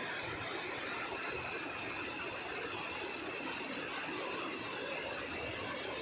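Steady rushing of a small waterfall splashing down onto rocks: an even, unbroken noise.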